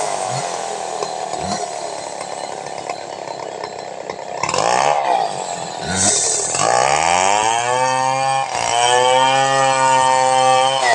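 Stihl 070 two-stroke chainsaw running and being revved: the engine speed falls away at first, comes up in two throttle blips about four and a half and six seconds in, then is held at high revs, with a brief dip about eight and a half seconds in.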